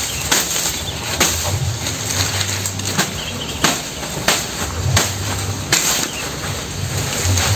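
A machete chopping bundles of fresh odot (dwarf elephant) grass stalks in a concrete feed trough: about eight sharp chops at an uneven pace, with the cut leaves rustling.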